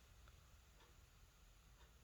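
Near silence: faint room tone with a low hum and a few very faint ticks.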